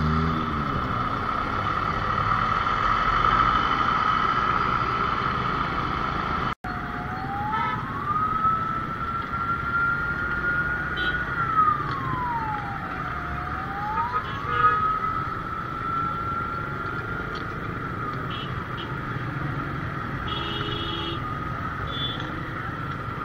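Ambulance siren wailing slowly up and down in pitch over motorcycle and city traffic noise, starting after a brief cut in the sound about a quarter of the way through and fading after several seconds.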